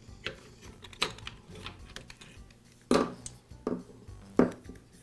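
Handling clicks and knocks as the ignition wires are pulled free of a chainsaw's cylinder and the saw's housing is handled: a few sharp clicks, the two loudest about three and four and a half seconds in.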